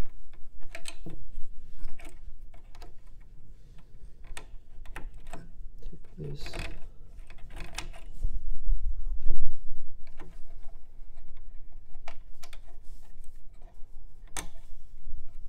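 Irregular clicks, taps and plastic rattles of hands fitting an Intel stock CPU cooler and its fan cable onto a motherboard inside a computer case. A low handling rumble comes about eight seconds in, and a sharp click near the end.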